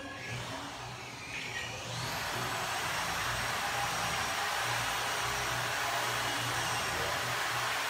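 A steady whooshing motor noise, like an appliance moving air, that swells up about two seconds in and then holds at an even level.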